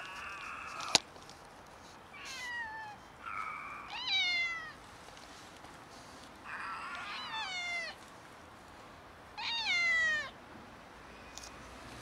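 Young stray cats meowing: about six calls in three pairs, most of them sliding down in pitch. The loudest come about four and ten seconds in. A sharp click sounds about a second in.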